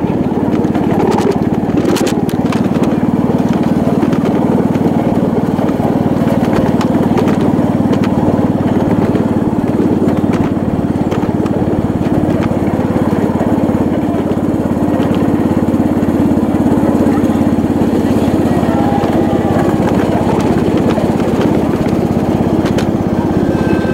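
Steady running noise of a ride-on miniature train, an even drone like a small engine, with a few short clicks.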